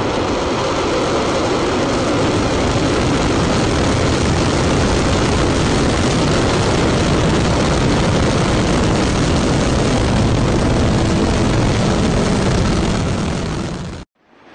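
Long March 2C rocket's four-engine first stage at liftoff and climb-out: a loud, steady, dense rocket roar that holds nearly level, eases slightly and then cuts off abruptly near the end.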